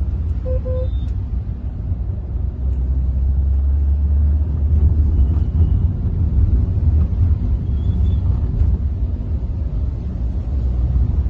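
Steady low rumble of a Hyundai Verna's 1.6 CRDi four-cylinder diesel and the road under way, heard from inside the cabin. A short double beep comes about half a second in.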